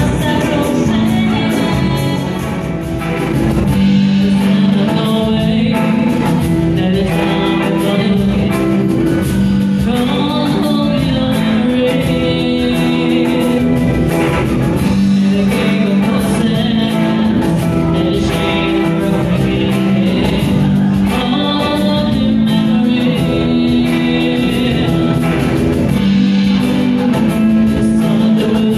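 A live rock band playing with singing over electric guitar, drums and keyboards, continuous through the whole stretch.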